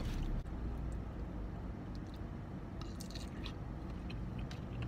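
A person chewing a mouthful of oden pieces, with short scattered clicks, over a low steady hum.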